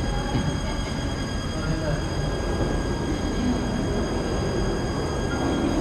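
Steady room noise of a busy dining hall: a constant rumble with indistinct voices in the background.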